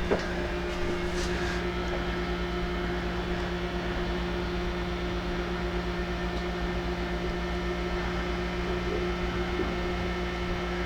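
Microwave oven running on inverter power under a load of about 1700 watts: a steady, even electrical hum.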